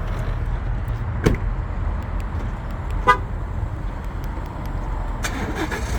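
A single short horn chirp from a 2017 Ford F-150 about three seconds in, over a steady low rumble, as its new key fob's remote start is tried. There is a click about a second in and a brief noisy burst near the end.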